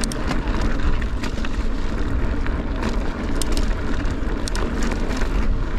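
Mountain bike ridden over a wet, rocky trail: a steady low rumble of tyres and wind on the camera microphone, with scattered sharp clicks and rattles from stones and the bike.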